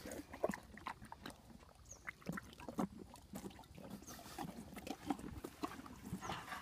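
A pony bobbing for floating apples and carrots in a water trough, its muzzle working in the water with irregular short splashes and snuffles.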